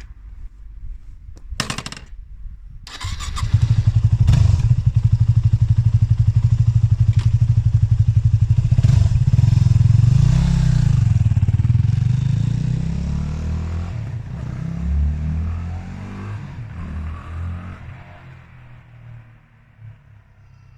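Yamaha WR250X's 250cc single-cylinder four-stroke engine on its stock exhaust, coming in suddenly about three seconds in and running loud with a steady pulsing beat, its pitch wavering briefly; the sound then gradually fades over the last several seconds.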